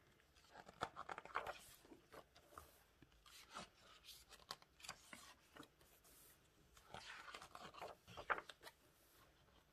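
Faint rustling and flapping of glossy photobook pages turned by hand, a few page turns with quiet paper handling between, the loudest near the end.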